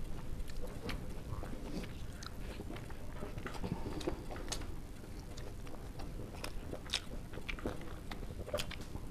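People chewing and eating with their hands: wet mouth smacks and small irregular clicks, over a faint steady hum.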